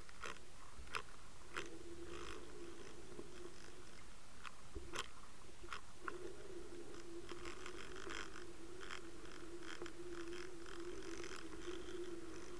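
Underwater sound from a camera on a fishing line as a lure is retrieved: a steady low hum with scattered sharp clicks and crackles, the loudest click about five seconds in.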